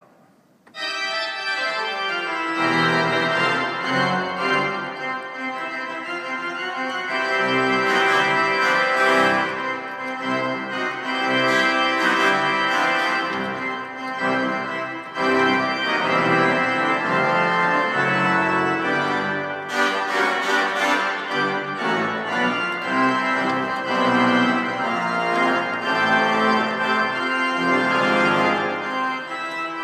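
Instrumental music with sustained chords, starting about a second in.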